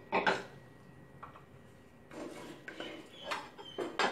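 A spatula scraping and tapping against a coated wok, pushing pork cracklings around in hot pork lard. It comes in a few short strokes: one about a quarter-second in, then several in the last two seconds.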